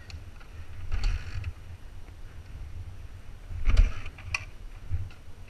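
Dirt bike being kicked over without starting: two kick-start strokes, about a second in and a louder one near four seconds, over a steady low rumble.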